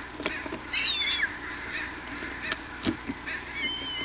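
Bald eagle calling: a loud, high whistled call that falls in pitch about a second in, and a shorter, fainter one near the end. A few sharp clicks and knocks come from the nest between them.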